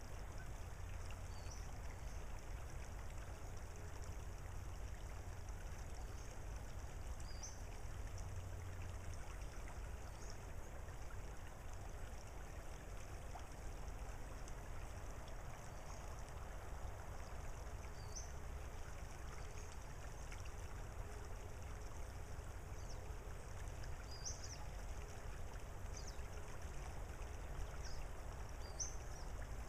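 Steady soft trickle of a shallow tidal creek running over gravel, over a low rumble. Brief high bird chirps come every few seconds.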